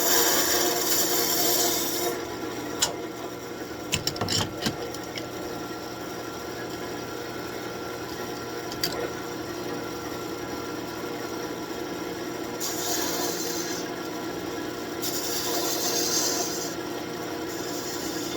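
Wood lathe running with a steady hum while a turning tool cuts the spinning birch branch in short passes, each pass a scraping hiss: near the start, about two-thirds of the way through and again near the end. A few sharp knocks come around four seconds in.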